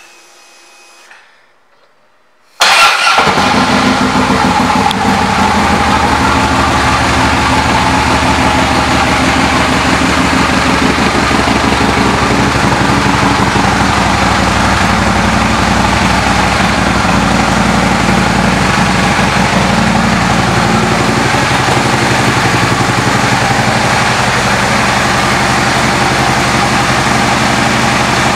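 A 2010 Harley-Davidson CVO Street Glide's Twin Cam 110 V-twin, breathing through Vance & Hines aftermarket exhaust, fires up about two and a half seconds in and settles into a steady idle.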